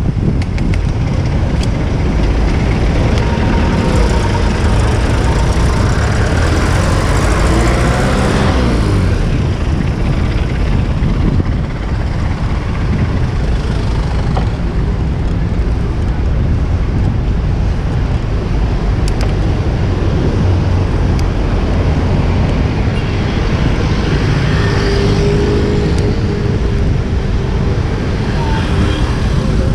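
Wind rumbling on the microphone of a moving bicycle, mixed with city traffic. Motor vehicles pass close by, with engine sounds swelling and fading about a quarter of the way in and again near the end.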